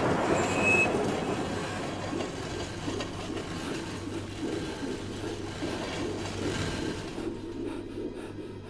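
A low, steady rumbling drone that slowly fades, its higher part dropping away near the end.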